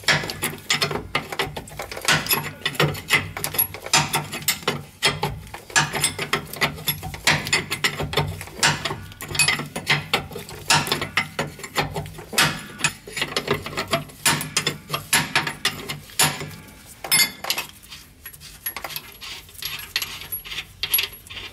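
Hand ratchet wrench clicking in quick runs as the mounting nuts of an air brake chamber are unscrewed. The clicking thins out near the end, and a steady low hum runs underneath.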